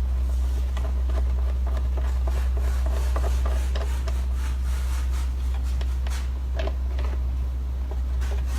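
Steady low electrical hum, with faint scattered clicks and rubbing of handling noise over it.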